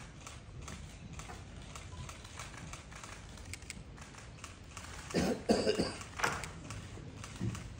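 Quiet room with faint scattered clicks. About five seconds in, someone coughs a few times in quick succession.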